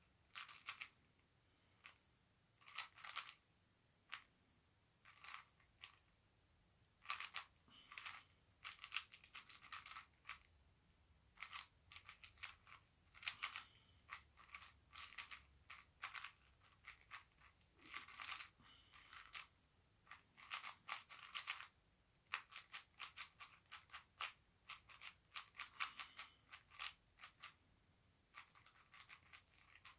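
Plastic 4x4 speedcube being turned rapidly by hand: flurries of quick clicking and clacking layer turns separated by short pauses.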